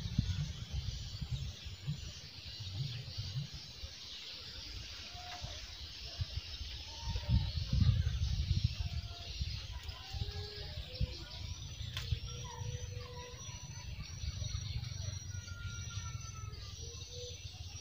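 Birds chirping and whistling in short calls, more of them from about ten seconds in, over a steady high hiss and a low rumble.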